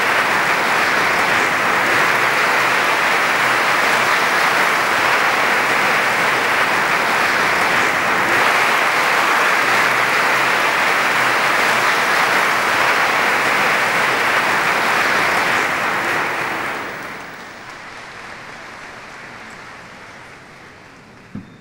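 Audience applauding as the conductor takes the podium, a steady clapping that dies away about three-quarters of the way through. A single short knock comes near the end.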